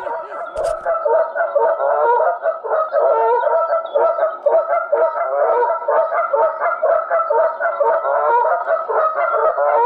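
A flock of geese honking, many calls overlapping in a continuous chorus. There is one short knock about half a second in.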